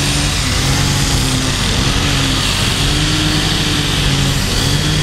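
A motor engine running steadily, its pitch gently rising and falling every second or so.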